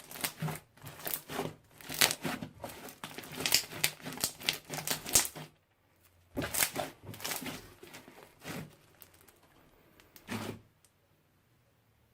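Slime being squished and poked by hand, making quick sticky clicks and crackles: a dense run that stops about five and a half seconds in, a sparser run after a short pause, and one last click near ten and a half seconds.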